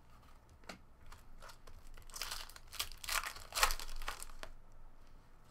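Trading cards being handled and shuffled by hand. Papery rustling and crinkling comes in several short bursts, loudest around two and three and a half seconds in, with small clicks of card edges.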